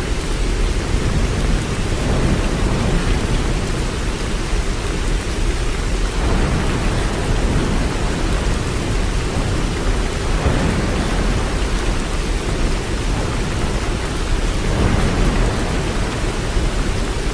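Waterfall: a steady, dense rush of falling water, heaviest in the low end, swelling gently every few seconds.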